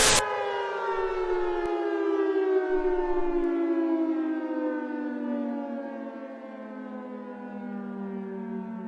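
Civil defense siren winding down: after a brief click right at the start, its pitch falls steadily and slowly and the sound fades.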